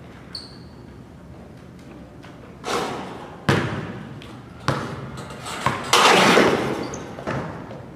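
A basketball dunk in an echoing gym: a series of sharp slams and thuds as the ball is jammed through the hoop and the steel rim is grabbed and rattled, the loudest about six seconds in.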